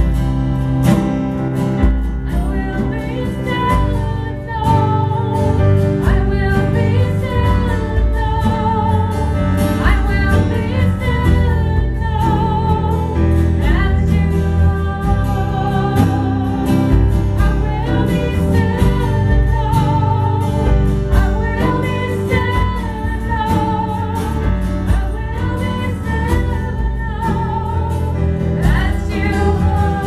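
A live band playing a song, a woman singing the lead with wavering held notes over a Korg Krome keyboard, guitars and drums.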